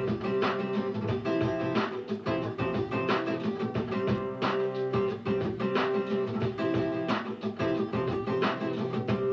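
Acoustic guitar being strummed, chords ringing out with a stroke roughly every half second to second.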